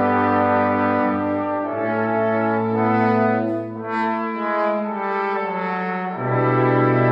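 Brass quintet playing sustained chords, trumpets, horn, trombone and tuba moving from chord to chord, with a loud low note coming in about six seconds in.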